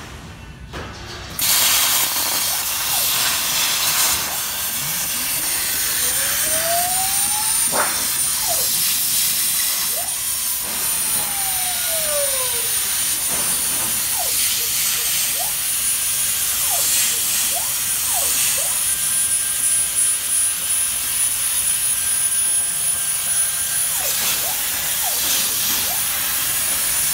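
CNC plasma cutting table's torch arc striking about a second and a half in and then cutting sheet metal: a steady loud hiss of the arc and its air with a thin high whistle over it. Rising and falling whines come and go as the gantry carries the torch along the cut.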